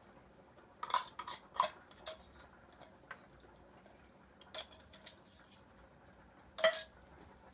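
Metal kitchen utensil clinking against a pot, a handful of short sharp clinks, with the loudest near the end.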